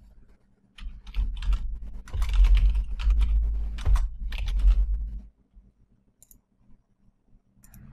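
Typing on a computer keyboard, a quick run of keystrokes lasting about four and a half seconds. Two short clicks follow near the end.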